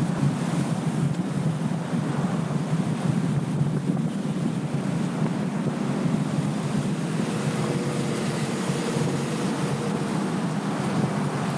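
Steady rush of wind over the microphone of a camera mounted on the roof of a moving car, with road and tyre noise underneath.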